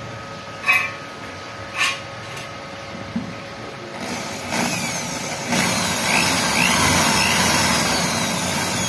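Two sharp clicks, then a corded electric drill starting up about four seconds in and running steadily, its bit boring through the night latch's mounting hole into the steel gate for a fixing screw.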